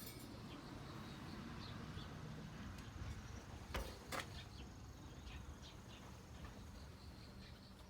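Faint background noise with scattered small clicks, two sharper knocks about four seconds in, and a thin high steady tone that stops about seven seconds in.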